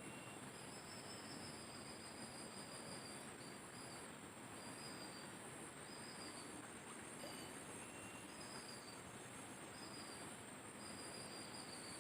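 Insects trilling: a steady, high-pitched buzz that pulses evenly, with shorter calls repeating every second or so, over a faint hiss.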